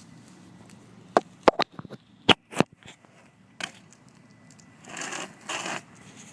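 BMX bike knocking and clacking as a trick is ridden: a quick series of sharp impacts starting about a second in, the loudest around two seconds, then two short rough scuffs near the end.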